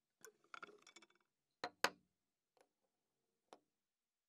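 A scatter of light clicks and knocks from a small steel hinge and a wooden board being handled and set in place on a bench. The two loudest are sharp clicks about a fifth of a second apart, about two seconds in, with a couple of faint taps after.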